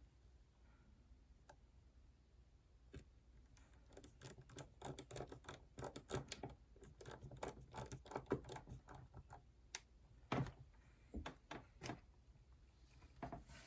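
Faint, irregular clicking and tapping of small tools and parts against an iPhone being reassembled, a quick flurry of clicks for several seconds in the middle, then a few scattered taps.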